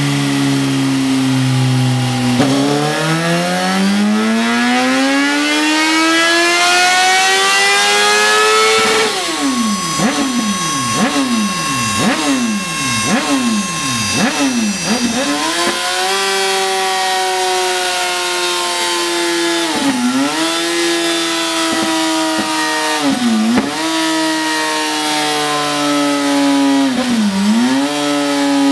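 Suzuki GSX-R 1000's inline-four engine running on a motorcycle dyno: the revs climb steadily for several seconds, then dip and recover in a quick string of throttle snaps about once a second, then hold high with three brief drops.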